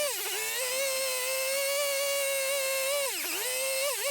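A power carving tool running at high speed in a steady high whine, its pitch dipping briefly and recovering as it bites into the wood: shortly after the start, again about three seconds in, and once more near the end.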